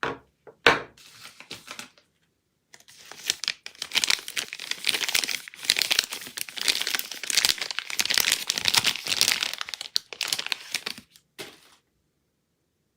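Soap packaging being unwrapped by hand: a couple of sharp clicks at the start, then about eight seconds of continuous crinkling of the wrapper, ending with a short rustle.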